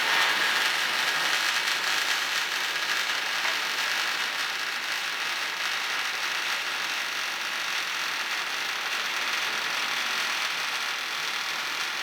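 Welding arc from a cobot-held torch laying an arc-shaped weld, a steady loud crackle that started just before and holds even throughout.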